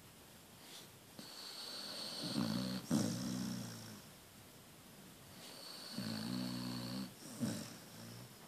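A sleeping dog snoring: two long snores, each a hissing breath that runs into a low rumble, with a short snort near the end.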